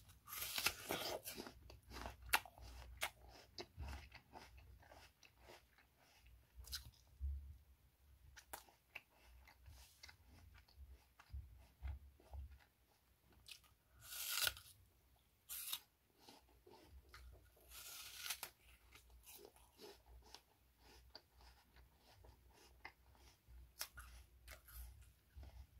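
A crisp raw apple being bitten and chewed, several sudden crunching bites with smaller chewing crunches in between.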